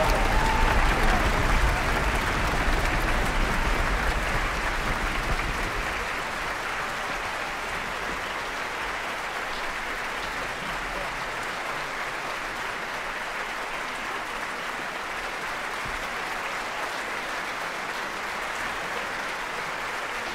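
Theatre audience applauding: dense clapping, loudest for the first five seconds or so, then settling to a steadier, lower level.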